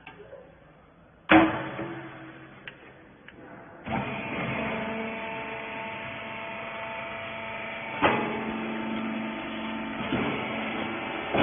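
A loud sharp metal clank a little over a second in, then a hydraulic rags baler's motor and pump start up about four seconds in and run steadily with several steady tones, with further clanks near the middle and at the end.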